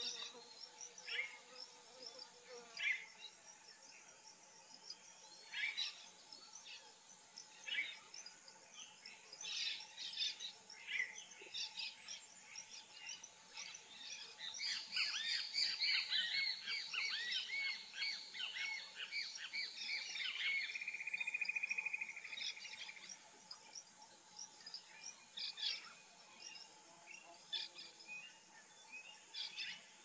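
Birds calling in short notes throughout, thickest from about 14 to 22 seconds in, with a rapid trill around 20 seconds, over a steady high insect drone.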